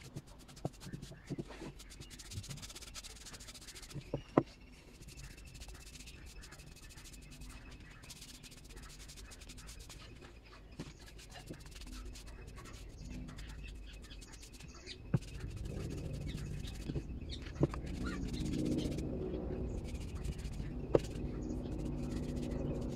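Paintbrush rubbing wood finish onto a wooden clock frame: soft scratchy strokes with occasional light knocks. About two-thirds of the way through, a low background murmur grows louder.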